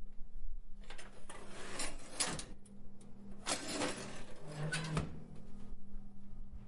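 Heavy industrial hinge being swung twice, each a noisy grating creak of about a second and a half, the second a little after three seconds in.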